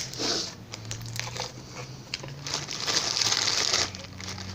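Crinkling and rustling in two bursts: a short one at the start and a louder one lasting about a second from about two and a half seconds in.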